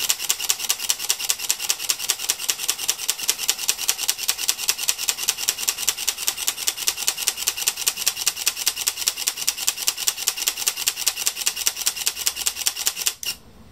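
Fujifilm GFX 100 medium-format mirrorless camera's mechanical focal-plane shutter firing in a continuous burst with no lens mounted: evenly spaced sharp clicks, about five a second. The burst stops about 13 seconds in.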